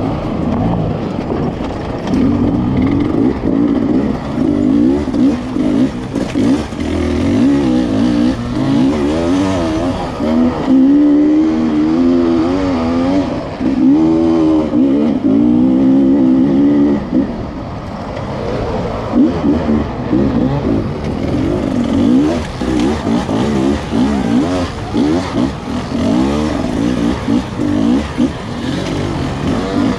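Hard enduro dirt bike engine, heard from the rider's own bike, revving up and down as it claws up a steep rocky climb. The revs surge and fall most sharply about ten to seventeen seconds in, ease off briefly, then pick up again.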